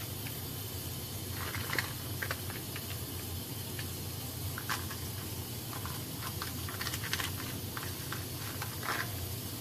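Irregular soft ticks and light patters as raisins are picked apart by hand and dropped onto shredded carrot and cabbage in a plastic bowl, over a steady low hum.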